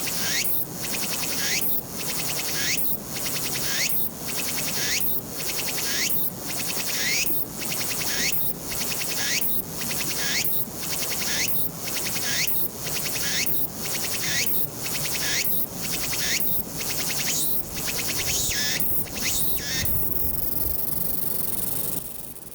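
A tsukutsukubōshi cicada (Meimuna opalifera) singing its repeated phrase, about three phrases every two seconds. Near the end the phrases quicken and give way to a steady buzz, which closes the song and then fades out.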